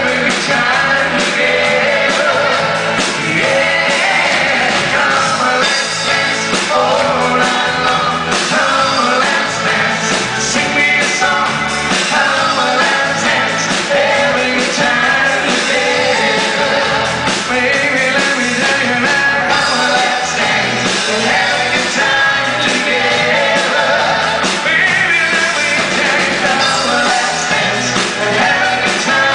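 Live pop-rock band playing a song with lead singing, over guitars, bass, keyboards and drums.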